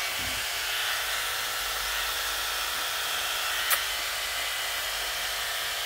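Blow dryer running steadily with an even hiss, with one sharp click a little past halfway.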